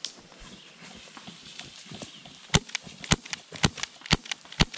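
Airsoft pistol firing five sharp shots in quick succession, about two a second, starting about halfway in.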